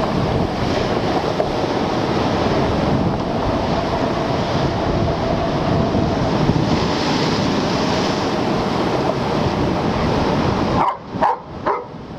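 Storm waves crashing against a rock seawall under heavy wind buffeting the microphone, a dense steady rush. Near the end a German shepherd barks several times in quick succession.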